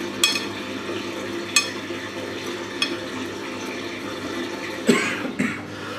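Fingers rolling and pressing a turkey strip into dry breading on a ceramic plate: a few light clicks and soft scraping over a steady background hiss, with a short louder noise about five seconds in.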